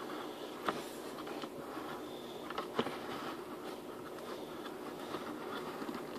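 Handling noise of equipment being repositioned: light rustling and scraping with a few sharp knocks, the clearest about a second in and near three seconds in, over a steady low hum.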